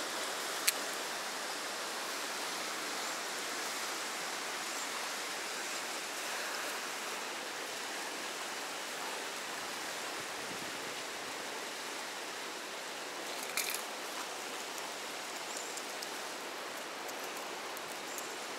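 Fast river water rushing steadily through a rocky channel, with one sharp click about a second in and a brief short sound near the middle.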